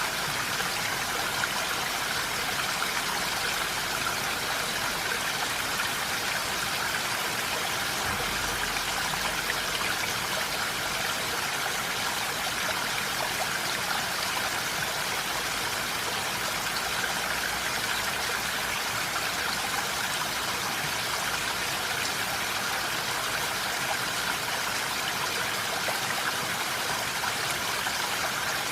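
Steady rain falling in a forest, an even, unbroken hiss of many drops.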